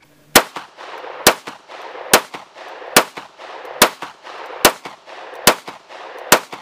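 Bul Armory Axe C Hatchet 9mm pistol fired eight times at a steady pace, a shot a little under every second, each crack with a short echo after it.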